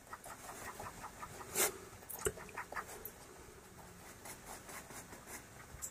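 Faint scratching of a pastel pencil drawn across pastel paper in many short strokes, blending colour into the drawing, with one louder stroke about one and a half seconds in and a small click a little after two seconds.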